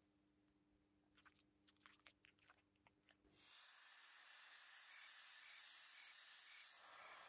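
Handheld gas torch flame hissing steadily, starting about three and a half seconds in, as it heats the twisted copper wire ends to fuse them. Before it, a few faint light clicks.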